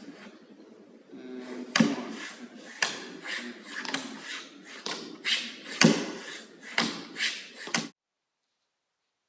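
Dance steps in a small room: uneven thumps and knocks of feet on the floor, about one to two a second, during a rehearsal of the Running Man move. The sound cuts off suddenly about 8 seconds in.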